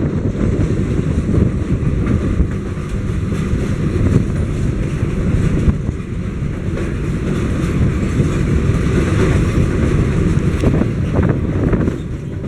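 Hurricane Turn passenger train moving along the track: a steady low rumble with rattling from the wheels and cars, and wind buffeting the microphone.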